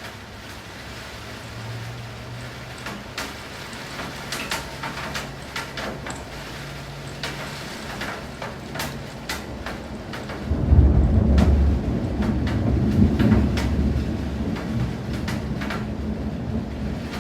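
Rain falling, with separate drops ticking. About ten seconds in, a loud low rumble of thunder rolls in and slowly dies away.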